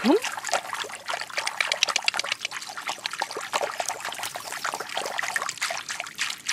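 Wirehaired Pointing Griffon puppies lapping and nosing at shallow water, giving a run of small, irregular wet clicks and trickles. A short rising squeak sounds right at the start.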